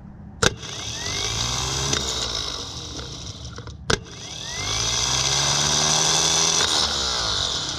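Original 1985 starter motor from a Mercedes W123's OM617 diesel, run on the bench: twice a sharp click as it is energised, then the motor whirs up with a rising whine, runs for a couple of seconds and winds down. This is the failed starter whose pinion gear is slow to retract.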